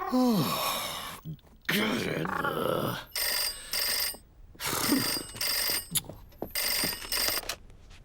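A cartoon voice gives a falling groan, then a telephone rings in double rings, three pairs in a row.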